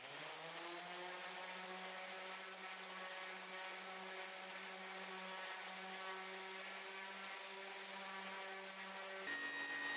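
Electric random orbital sander spinning up to speed and then running steadily while sanding a wooden board, a steady motor hum with a buzzing whir. About nine seconds in it gives way to a different machine with a higher whine.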